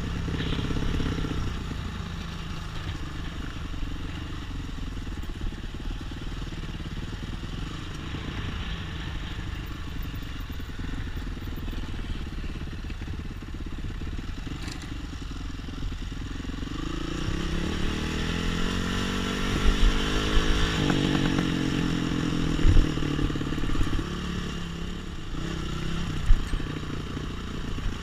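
Trail motorcycle engine running off-road, its revs climbing in pitch about two-thirds of the way through as it accelerates, then holding. A few sharp knocks and clatter come near the end.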